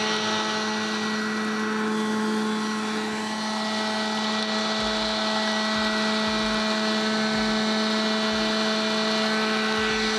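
Small electric food chopper running at a steady pitch, grinding cookies into crumbs.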